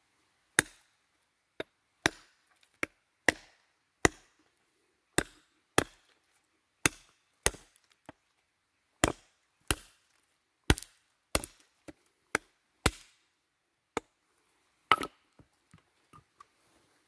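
Large saw-backed bushcraft knife chopping into the base of a thin, mossy sapling: a string of sharp wooden chops, one or two a second, with a few fainter taps near the end.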